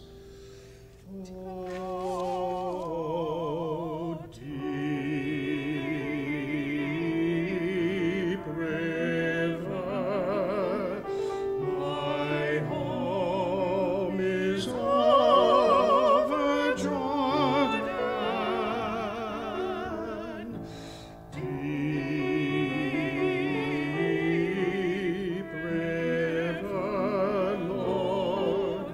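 Classical-style singing with a wide vibrato, sung in long phrases with brief breaks about four seconds in and again around twenty-one seconds.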